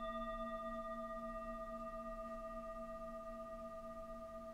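A single struck bell-like metal tone rings out and slowly fades, its lowest note wobbling gently.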